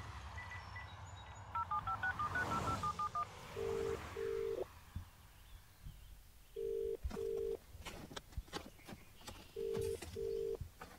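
A phone call being placed: a few short high keypad beeps, then a quick run of touch-tone (DTMF) dialing tones. Then the ringback tone rings three times, each ring a double pulse, about three seconds apart, until the call is answered.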